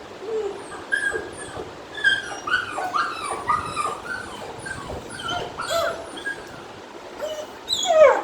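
Three-month-old German Shepherd puppy whining and yipping: a string of short, high-pitched whines, with a louder call sliding steeply down in pitch near the end.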